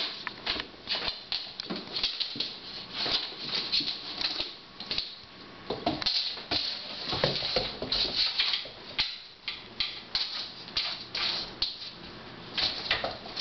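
An Old English Sheepdog puppy pawing and mouthing an ice cube on a wooden floor: an irregular patter of clicks, taps and scrapes as claws and ice skitter across the boards.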